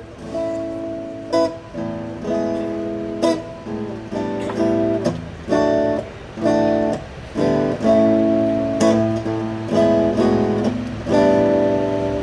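Acoustic guitar strumming chords in a rhythmic instrumental passage of a song, several chords cut off short between strums.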